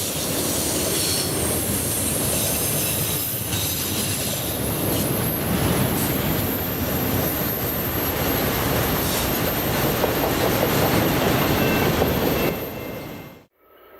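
Train rolling past with a steady rumble of wheels on rail and high-pitched wheel squeal over it. The sound fades and cuts off sharply near the end.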